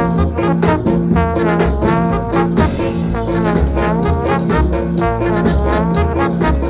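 1960s Jamaican ska instrumental recording: a trombone carries the melody with sliding, wavering notes over a steady bass line.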